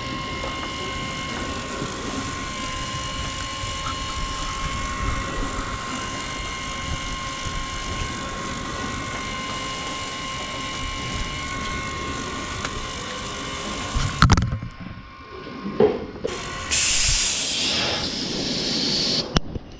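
Lely A5 robotic milker working under a cow: a steady mechanical hum with a high whine as the arm tries to attach the teat cups. A couple of knocks come after about fourteen seconds, and a loud hiss lasts a couple of seconds near the end.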